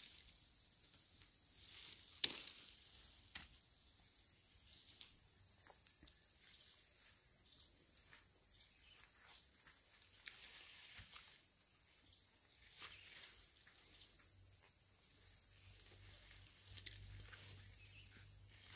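A steady, high, pulsing insect trill, with scattered light clicks and a sharp click about two seconds in.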